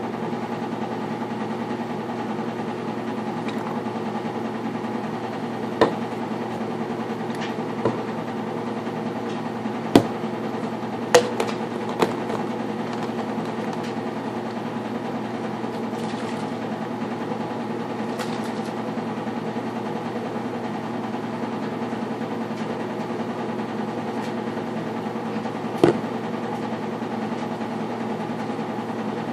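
A steady mechanical hum, with several sharp knocks of plastic baby bottles and caps being handled and set down on a table. Most of the knocks come between about six and twelve seconds in, and one more comes near the end.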